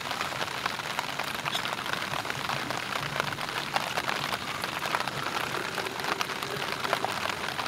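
Rain pattering on a tarp, a dense spatter of small drops with a steady hiss, while hot water is poured from a metal pot into a plastic Nalgene bottle.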